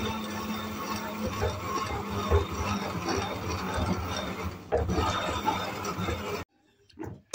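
Electric stick blender running in thick cake batter, its motor humming as it churns flour into the wet mix with an uneven, knocking texture. It cuts out about six and a half seconds in.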